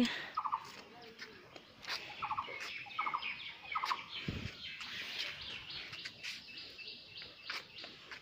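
Birds chirping, with a run of quick repeated high notes through the middle and a few short clicks.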